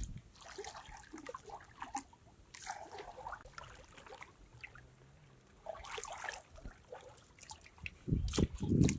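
Water splashing and trickling in irregular bursts, with a heavier slosh of water about eight seconds in.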